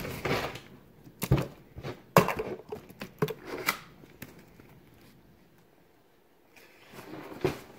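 Rustling and a few sharp knocks and clicks as small items are handled in a fabric suitcase, with a quiet pause in the middle.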